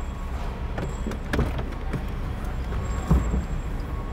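Dull knocks and thumps from the car body as luggage is loaded into the trunk, the loudest about three seconds in, over a steady low rumble of vehicles.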